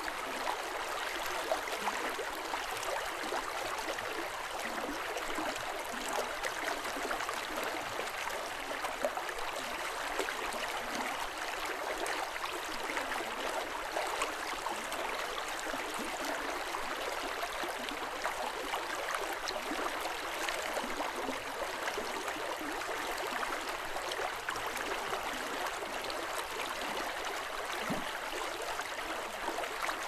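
A river flowing softly: a steady, even rush of water, with small splashes scattered through it.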